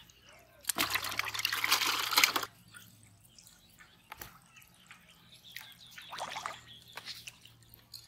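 Pond water splashing in one loud burst of about a second and a half, followed by fainter dripping and trickling.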